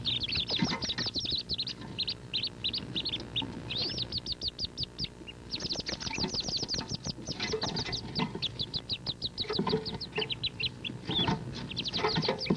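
Wood duck ducklings peeping in a dense chorus inside the nest box: many rapid, high, downward-slurred peeps with brief lulls. Mixed in are scrabbling knocks as the ducklings jump toward the exit, collide and fall back.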